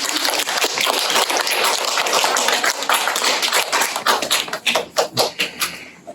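Audience applauding. Dense clapping thins to scattered separate claps over the last two seconds and dies away.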